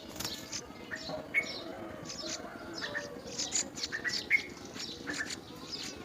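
Small birds chirping: a steady run of short, high chirps, with two louder, sharper notes about one and a half and four and a half seconds in.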